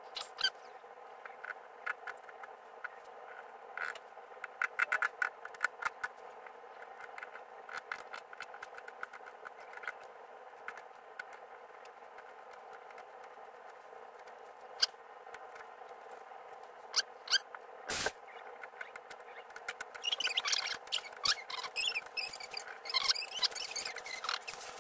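Knife cutting and scraping through a flatfish's skin and flesh on a paper towel over a glass dish: scattered small clicks and squeaky scrapes over a steady background hum. There is one sharp knock about 18 seconds in, and the scraping grows busier near the end.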